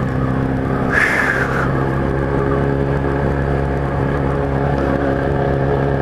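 Kawasaki Z1000's inline-four engine running at steady, low revs as the motorcycle cruises, with a brief hiss about a second in.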